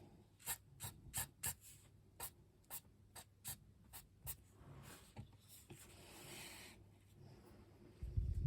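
A paintbrush flicking quick short strokes on watercolour paper to paint grass: about a dozen brief strokes, then a longer, softer brushing stroke. A low bump comes near the end.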